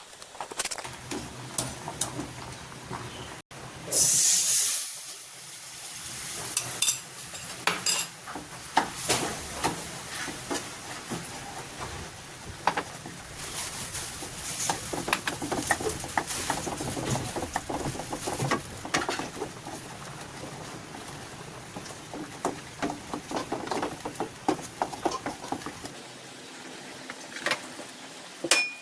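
Food frying in a hot pan while a utensil scrapes and stirs, with scattered clicks against the pan. About four seconds in there is a loud burst of sizzling that dies down over a second or so, as when something goes into the hot oil.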